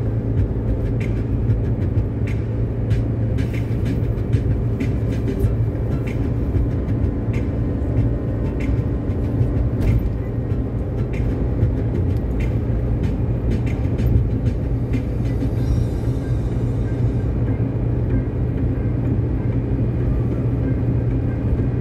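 Steady low rumble of a car's road and engine noise heard from inside the cabin at highway speed, with light ticks every second or so.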